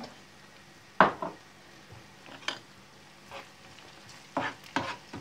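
Metal spoon scraping and knocking in a non-stick frying pan as onion, garlic and spinach are stirred, over a faint sizzle of frying. A single sharp knock about a second in is the loudest sound.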